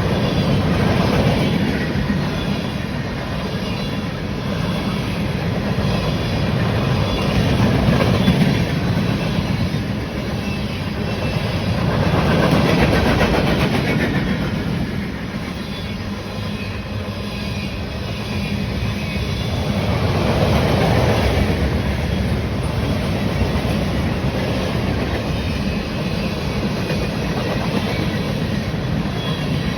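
Train passing: the steady rolling rumble of railcar wheels on the rails, swelling and easing several times.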